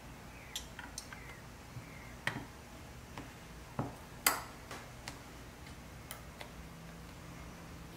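Light metallic clicks and taps, scattered and irregular, as the small pressed-steel bed of a Wyandotte toy truck is handled and fitted onto its cab and chassis; the sharpest click comes a little past the middle.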